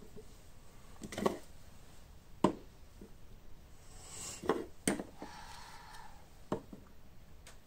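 Small plastic toy figures being handled and set down on a wooden dollhouse's floors: about six light knocks and clatters, spread out, with faint rustling in between.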